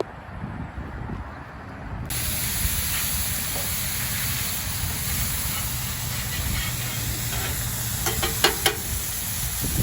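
Sizzling on the hot Members Mark propane griddle top, a steady loud hiss that starts abruptly about two seconds in. A few sharp clicks or taps come near the end.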